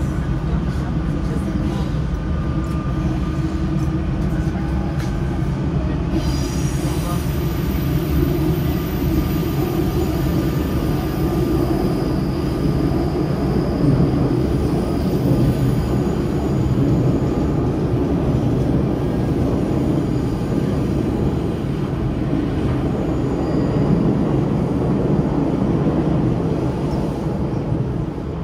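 SNCF Z 20900 double-deck electric train running, heard from aboard: a steady, loud rumble of the wheels on the track. Thin high-pitched tones join about six seconds in.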